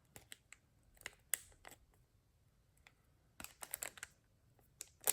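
Faint scattered clicks and light plastic crinkles in small clusters: a trading card being worked out of its plastic sleeve by hand.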